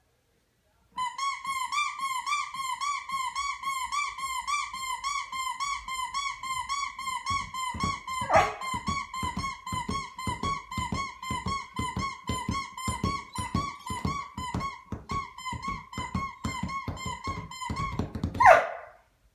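Rubber exercise ball squeaking as a person bounces on it, a high steady squeak pulsing about four times a second, with soft thumps joining about halfway. A short sliding cry from the dog cuts across it twice, the louder one near the end.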